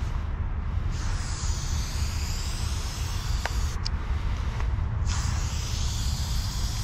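Aerosol spray-paint can spraying in two long hissing bursts, the first starting about a second in and the second after a pause of about a second, over a steady low rumble.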